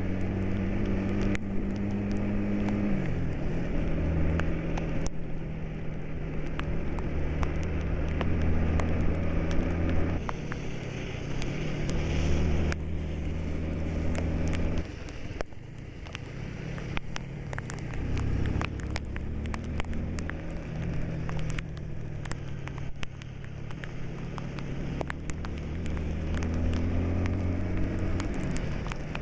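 Bus engine heard from inside the cab, running steadily on the road, its pitch shifting in steps at gear changes about three seconds in, around ten and fifteen seconds, and again near the end after a short rise. Scattered sharp ticks throughout.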